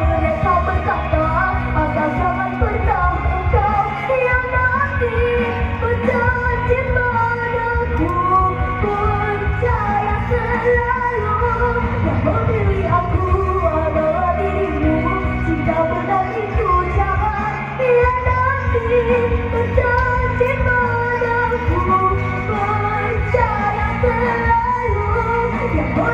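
Pop-rock band music with singing, loud and steady throughout.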